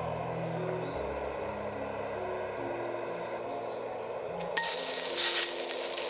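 Soft background music with long held notes; about four and a half seconds in, a loud sizzling hiss starts suddenly and keeps going.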